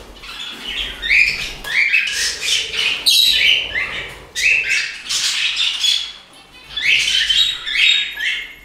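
Several pet cockatiels and budgerigars calling at once: a dense run of short squawks and chirps with a short lull about six seconds in.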